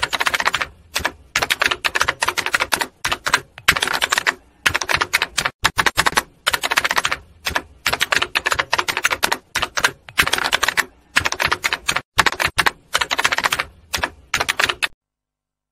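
Rapid dry clicking in irregular bursts, like typing. It stops abruptly shortly before the end.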